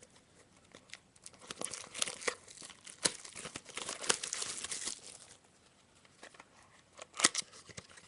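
A sealed trading card pack's wrapper being torn open and crinkled, with dense crackling for a few seconds and a sharp snap near the end.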